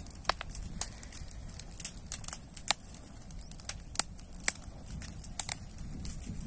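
Burning dry sugarcane trash crackling, with irregular sharp pops over a low steady rumble.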